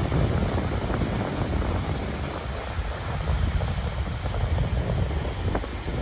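Sea surf washing over shoreline rocks, with wind buffeting the microphone in a steady low rumble that swells and eases.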